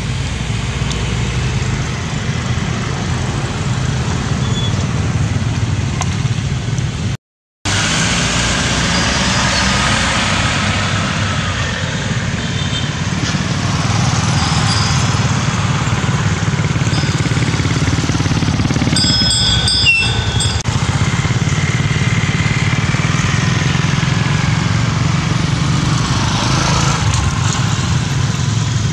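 Steady road traffic, motorbike and car engines running past, with a brief dropout about seven seconds in. A few short high-pitched chirps come about two-thirds of the way through.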